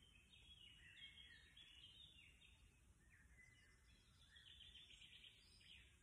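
Faint woodland birdsong: a series of short whistled phrases, then a quick trill of repeated notes near the end, over a low background rumble.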